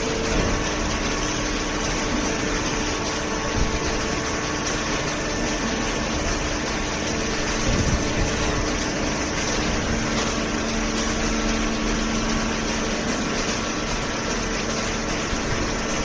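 Horizontal hydraulic cardboard baler and its feed conveyor running: a steady machine drone with a few held hum tones under it.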